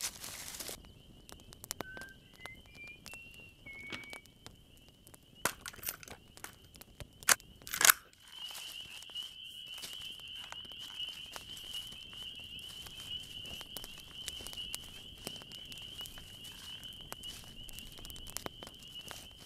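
Twigs snapping and dry brush crunching underfoot in scattered cracks, the loudest two around seven to eight seconds in. A steady, high, thin trill runs underneath.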